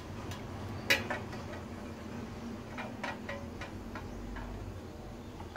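Light metallic clicks and knocks as a Teflon-coated Trangia mess tin and its handle are handled on a gas-canister camping stove, one sharp click about a second in louder than the rest, over the steady low sound of the lit burner.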